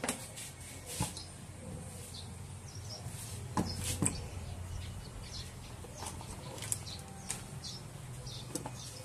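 Light knocks and clicks of an opened mixer's metal chassis being handled and set down on a table, a few scattered strikes over a low steady hum.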